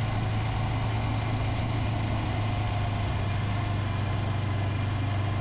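Honda CB500X's parallel-twin engine running steadily, with an even low hum that does not rise or fall.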